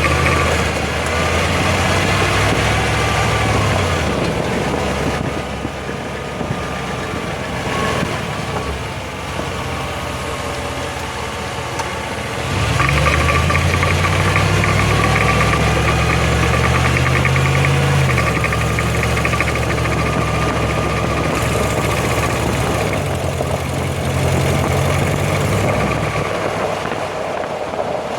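Differential of a 2005 Jeep Grand Cherokee with the 5.7 V8 whining under load while the vehicle accelerates uphill, over engine and road noise. The engine note climbs in three pulls, the longest about midway, with a fast rasp added during that pull. The uploader takes the noise for a differential fault.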